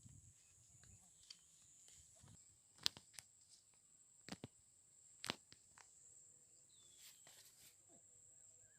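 Near silence: a few faint, sharp clicks and crunches of footsteps on dry field ground, over a faint steady high-pitched insect whine.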